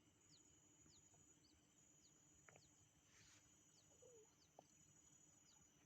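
Near silence: faint outdoor ambience with soft, short, high chirps repeating about every half second over a faint steady high hum.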